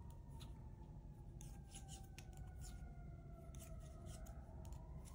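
Faint light clicks and scratches of wooden knitting needles and yarn as stitches are knitted, a scattered series of soft ticks.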